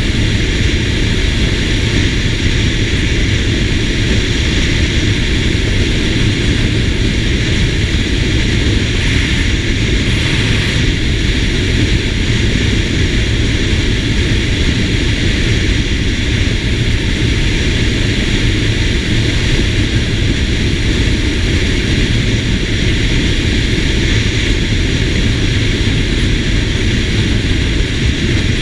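SYM GTS 250 scooter's single-cylinder engine droning under steady wind rush on the camera microphone while cruising at road speed. The noise holds steady throughout.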